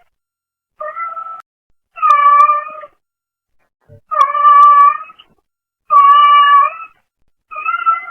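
Brown tabby domestic cat meowing repeatedly: a short meow, then three loud, drawn-out meows about two seconds apart, and another beginning near the end. Heard through a pet camera's microphone.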